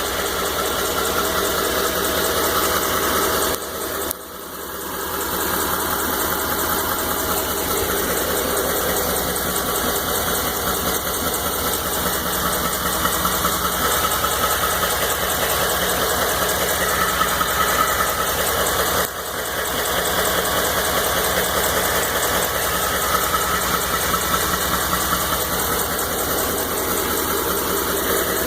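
2012 Ford F-150's 5.0-litre V8 engine running steadily with a knock, which the owner posts as an engine knock. The sound dips briefly twice, about four seconds in and again about nineteen seconds in.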